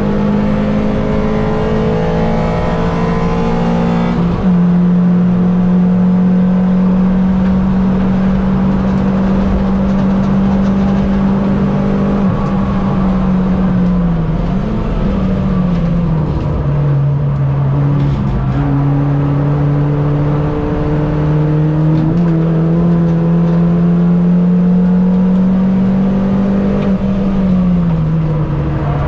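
Mini Cup race car engine running hard at high revs, its note holding steady for long stretches and stepping down or up in pitch a few times with gear changes and braking.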